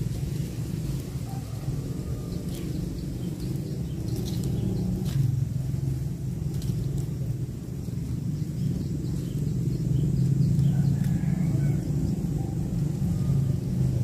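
Low outdoor rumble that swells louder about halfway through and again after about ten seconds, with a few faint ticks.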